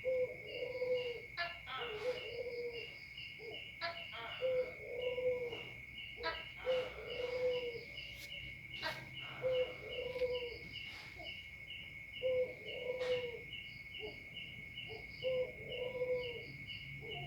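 Spotted dove cooing, repeating its low, burry coo phrase over and over every second or two, as a bird in full song does.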